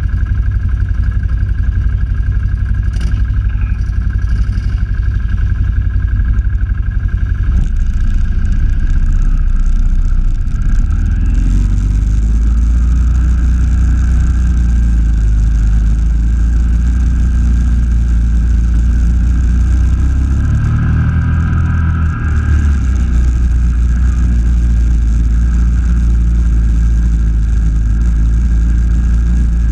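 Quad (ATV) engine running under way on a muddy trail, heard close up from a camera on its front rack. The engine note picks up about eleven seconds in and briefly eases off a little past twenty seconds.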